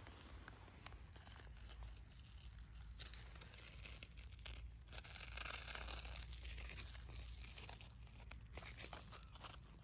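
Fingers touching and rubbing frost-covered leaves: a faint crackling and crinkling of the frozen leaves and their ice crystals, loudest about halfway through.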